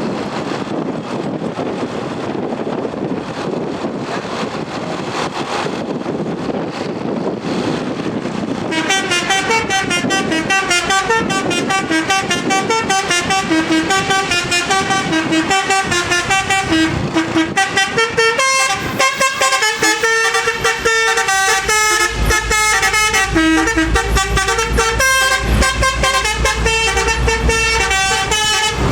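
Wind and road noise for about nine seconds, then a bus's multi-trumpet 'telolet basuri' horn playing a fast melody of short stepped notes. Deep thuds join in about halfway through.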